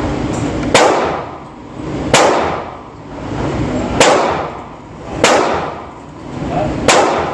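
Five pistol shots from a Glock 20 in 10mm Auto, fired at an uneven slow pace about one and a half seconds apart. Each shot is a sharp, loud crack. Between the shots a rushing background noise drops away after each one and swells back.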